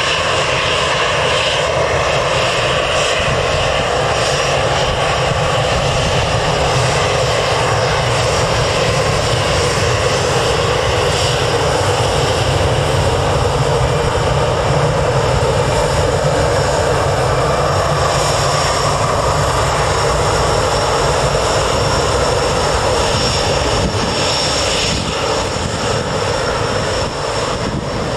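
Airbus A319 jet airliner's engines running at taxi power as it taxis past: a steady, loud engine noise with a high whine. It grows a little quieter near the end as the aircraft turns away.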